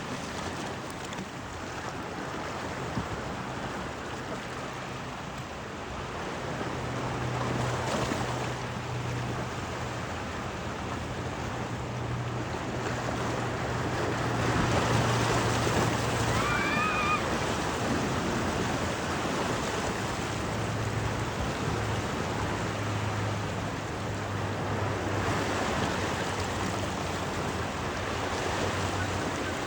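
Wind and sea noise with waves washing, under a low steady engine hum from a vessel that fades in and out. There is a brief high warbling call about halfway through.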